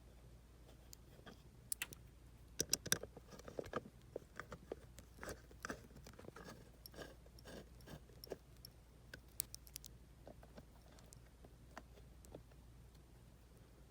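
Faint, irregular clicks and light taps of hands handling a dome security camera's plastic housing and small parts as it is reassembled.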